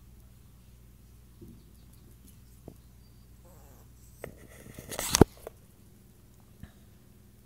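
A small poodle's claws tap on a hardwood floor now and then. About five seconds in there is a short, loud clatter of knocks and rustling right at the camera as it is moved.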